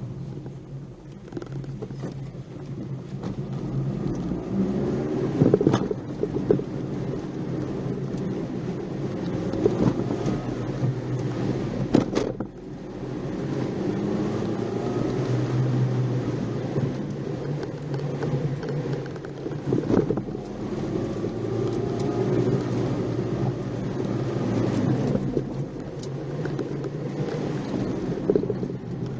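Nissan March 12SR's 1.2-litre four-cylinder engine heard from inside the car, its revs rising and falling as it is driven hard, over a steady tyre and road rumble. A few sharp knocks break in, about six, twelve and twenty seconds in.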